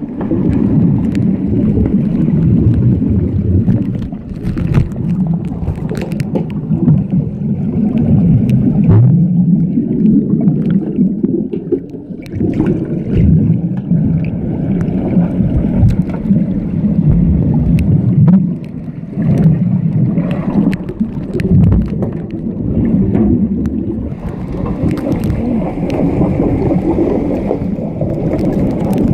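Swimming-pool water heard from underwater: a loud, muffled, churning rumble as swimmers with fins kick and move past, with scattered sharp clicks and knocks.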